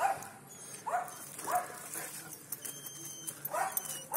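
A dog barking in short, high yaps, each falling in pitch: three in quick succession, a pause of about two seconds, then two more near the end.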